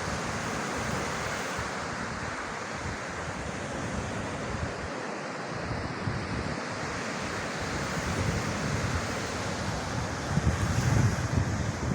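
Sea surf washing steadily onto a beach, with wind buffeting the microphone in low rumbling gusts that grow stronger near the end.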